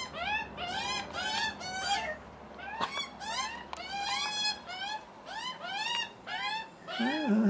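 Juvenile Australian magpies screaming for food: a fast string of short, arched begging calls, about two or three a second.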